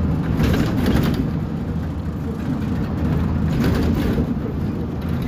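Mercedes-Benz OM906LA inline-six diesel engine and ZF 6HP502C automatic gearbox of a 2008 MAZ 203 city bus running, heard from the wheel arch as a steady low drone. Two brief bursts of hiss come through, about half a second in and again about three and a half seconds in.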